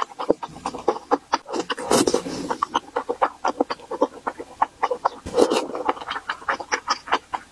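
Close-miked chewing of chewy rice cakes in thick spicy sauce: a rapid run of wet mouth clicks several times a second, with two longer, louder bursts about two seconds in and again just past five seconds.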